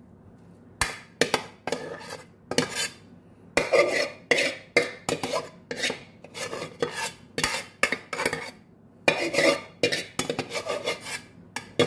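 A metal spoon scraping and clinking against the inside of a metal cooking pot, again and again at an irregular pace, as cooked ground beef is scraped out of it.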